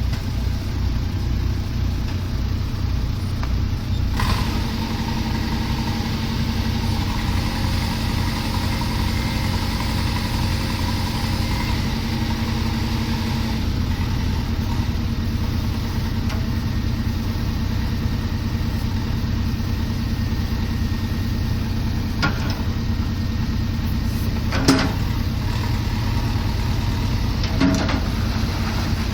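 Engine of heavy construction machinery running steadily, its note working harder from about four seconds in and easing back about halfway through. A few short knocks come near the end.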